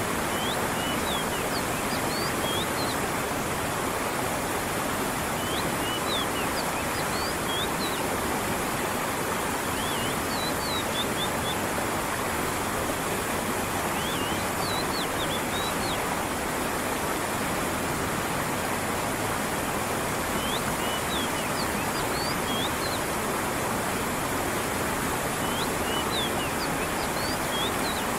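A brook's water running steadily, with short high bird chirps coming in brief clusters every few seconds.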